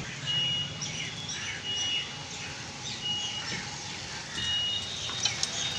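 Birds chirping in the background, one giving a short, flat, high note again and again about every second and a half, with smaller chirps in between.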